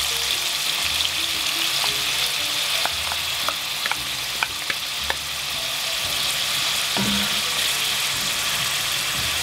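Frozen chopped onions sizzling steadily in hot oil in an aluminium dutch pot. Around the middle come a few sharp clicks as a wooden spoon scrapes onion from a bowl into the pot.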